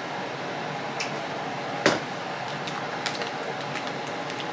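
Steady fan hum of a running air fryer, with a few light clicks and knocks of kitchen handling; the sharpest click comes about two seconds in.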